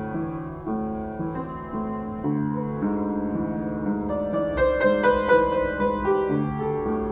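Yamaha JU109 acoustic upright piano being played: a melody over held chords, with a bright flurry of higher notes about halfway through.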